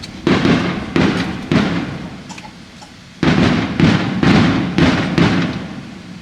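Aerial fireworks bursting: about eight sharp booms, each trailing off in a rolling rumble, with a quick run of louder bursts from about three seconds in that dies away near the end.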